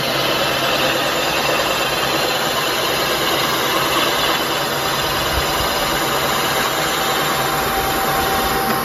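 Milling machine running, its 17.4 mm slot drill cutting a 5 mm-deep seal recess into a Cosworth engine block as the cutter is wound down. A steady, dense machining noise with a faint whine.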